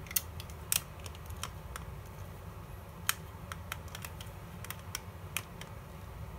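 Irregular light clicks and ticks, a dozen or so, from a small hand screwdriver driving tiny screws into a plastic scale-model engine assembly as the parts are handled.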